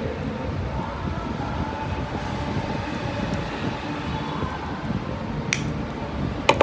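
Needle-nose pliers clicking as they work a small propeller onto a frog lure's wire: one click about five seconds in and a louder one near the end. A steady low rumble runs underneath.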